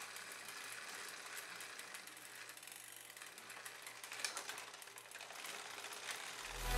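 Bicycle drivetrain turned by hand on a stand: the chain runs faintly over the chainring and through the front derailleur with a fast, light ticking. Music comes in near the end.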